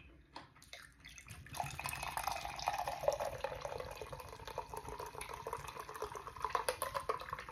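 Poppi soda poured from a can into a glass, splashing and fizzing as it lands. The pour starts about a second and a half in and the pitch of the pour climbs steadily as the glass fills.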